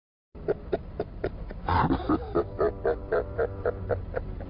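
A man's deep laugh on a film soundtrack, in short, even pulses about four a second. It starts just after a moment of silence and grows louder about a second and a half in.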